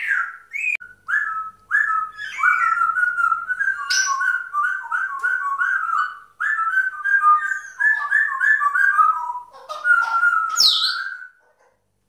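African grey parrot whistling a long, rapid run of short whistled notes, broken by a brief pause about six seconds in, with a sharper high note near the end.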